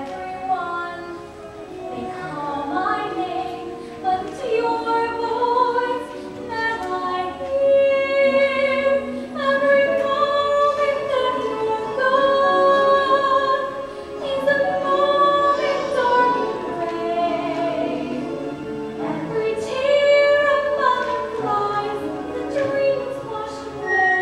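A woman sings a musical-theatre ballad solo, holding several long notes.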